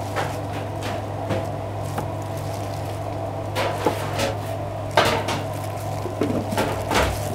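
Kitchen clatter: scattered knocks and clinks of a stainless steel bowl and a plastic tub as onion rings are tossed in flour, the loudest knock about five seconds in, over a steady low hum.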